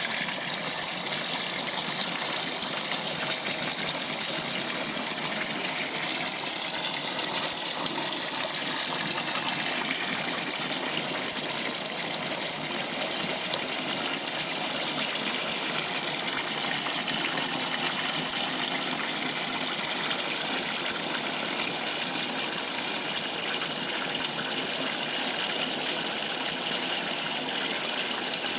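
Water gushing steadily into the tub of an Electrolux Top 8 top-loading washing machine as it fills for the rinse cycle.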